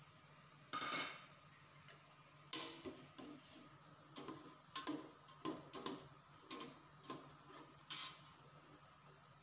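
Wire mesh strainer clinking and knocking against the side of a metal pot while blanched bean sprouts are scooped out of the water: about a dozen sharp metallic knocks, the loudest about a second in and near the end, over a steady low hum.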